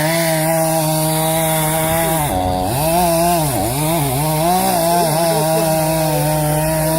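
Gasoline chainsaw running at high speed while cutting into a tree trunk; about two seconds in, the engine speed dips several times as the chain bites and bogs under load, then picks back up and runs steady.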